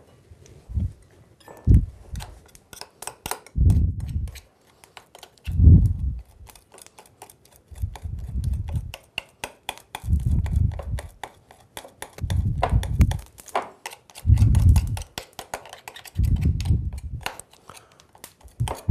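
Metal spoon stirring a thick batter in a glass bowl, with many quick clinks and scrapes of the spoon against the glass, while the batter is worked smooth. A dull low thump comes about every two seconds and is the loudest sound.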